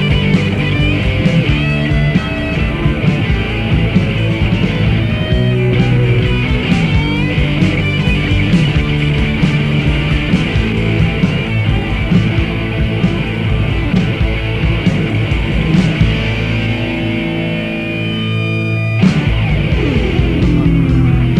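Grunge-punk rock band playing with no vocals: distorted electric guitar chords over bass and drums. Near the end the drums drop out for a few seconds, then the full band crashes back in.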